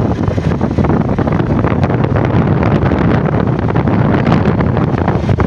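Wind buffeting the microphone of a camera moving along a road: a loud, steady rumbling rush.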